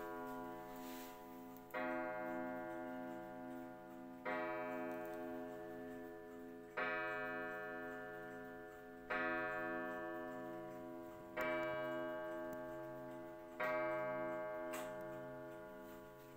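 Junghans pendulum wall clock striking the hour on its spiral gong: six slow strokes about two and a half seconds apart, each ringing and fading before the next, with the clock ticking steadily underneath.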